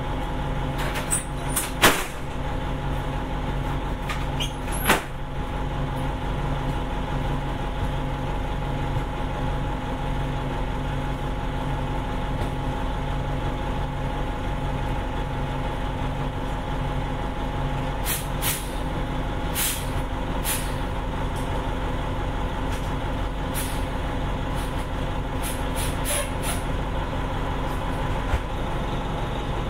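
A 1989 Gillig Phantom transit bus's Detroit Diesel Series 50 inline four-cylinder diesel running steadily. Short sharp hisses of air cut in over it, two loud ones in the first five seconds and a cluster in the second half.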